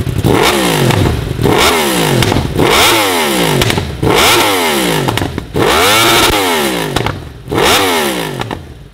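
Litre-class inline-four sport bike engine free-revved six times while standing, each rev climbing sharply and falling back toward idle.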